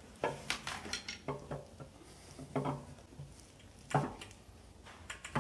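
Ford FE 390 camshaft being twisted and worked back and forth in the block's cam bearings: scattered light metallic clinks and scrapes, the loudest about four seconds in. The cam is stuck tight, which the owner puts down to the engine sitting about 40 years without oil.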